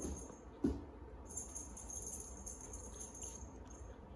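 A kitten's play toy jingling and rattling in short spells while she plays with it, with one soft knock a little over half a second in.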